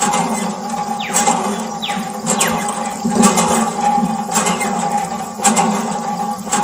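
Water running and splashing over a steady hum, with a pulse about once a second.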